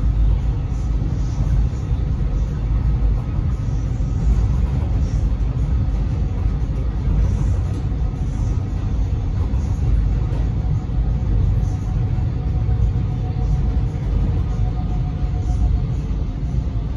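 X'Trapolis electric multiple unit heard from inside the carriage while running at speed: a steady low rumble of wheels on track, with faint steady tones above it.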